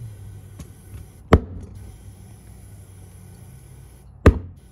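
Two sharp, loud cracks about three seconds apart, each ringing briefly, over a steady low hum.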